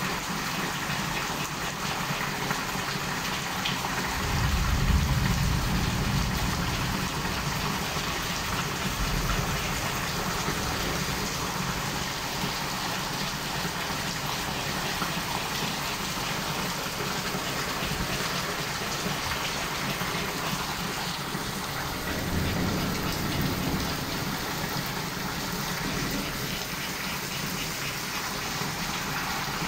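Heavy rain pouring steadily during a thunderstorm, as a continuous hiss. About four seconds in, a low rumble swells for a few seconds, and a weaker one comes near two-thirds of the way through.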